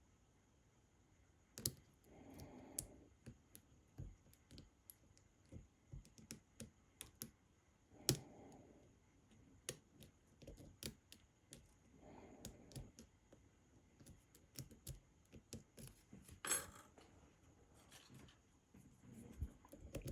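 Faint, irregular clicking of a lock pick lifting and setting pins inside a pin-tumbler lock under tension, the lock held in a false set. A few sharper, louder clicks stand out among many small ones.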